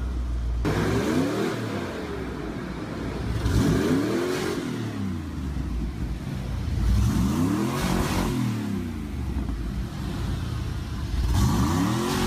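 Ford F-150 SVT Lightning's 5.8-litre V8 idling through its side-exit dual exhaust and revved four times, about every three and a half seconds, each rev rising and falling back to idle over about a second.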